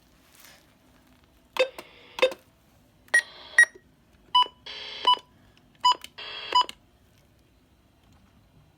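Weather radios beeping, with three short bursts of static, each about half a second long and opened and closed by a beep, between about 1.5 and 7 seconds in. The static is the radios finding no signal because the KIG86 NOAA Weather Radio transmitter is off the air.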